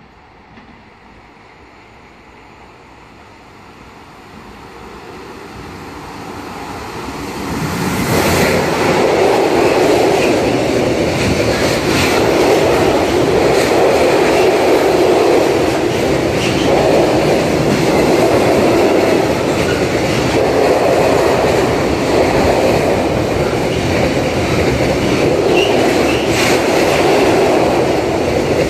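Freight train of tank wagons hauled by a TRAXX electric locomotive approaching and passing: the sound grows steadily, jumps sharply as the locomotive goes by about eight seconds in, then the wagons roll past with loud steady wheel noise and occasional clacks.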